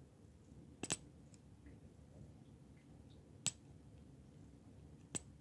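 Metal bracelet links and case of an Invicta Venom Hybrid watch clicking against each other as it is handled: a quick double clink about a second in, then single clinks near the middle and near the end.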